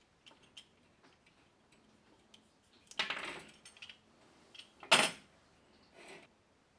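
Small metal and plastic shower-hose parts being handled on a work surface: scattered faint clicks, a scraping clatter about three seconds in, and a sharp metallic clack about five seconds in as the metal hose parts knock the surface.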